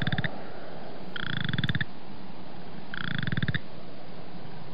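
Western chorus frog calling: short pulsed trills, each under a second long and made of many rapid pulses, repeating about every two seconds over a steady background hiss.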